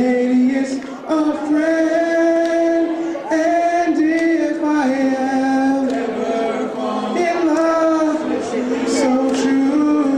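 Male vocal group singing a slow song through microphones, with long held notes.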